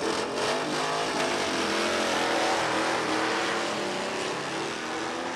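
Two drag-race cars launching from the start line and accelerating hard down the strip, engine pitch climbing.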